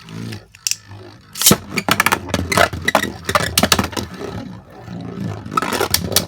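Beyblade spinning tops clashing: a fast, irregular run of sharp clicks and knocks that gets dense about a second and a half in.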